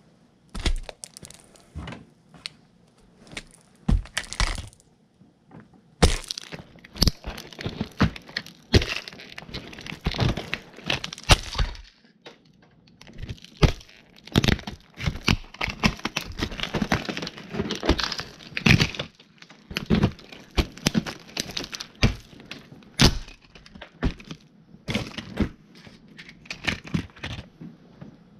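Heavy logger boots stomping on toy dinosaur cars, cracking and crushing them: sharp snaps and thuds with spells of dense crunching, broken by short pauses.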